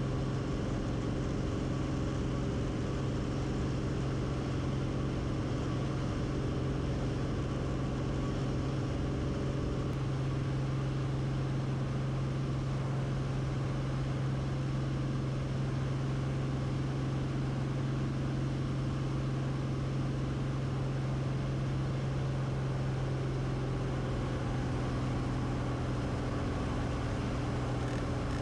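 Cessna 180's six-cylinder engine and propeller droning steadily at climb power just after takeoff.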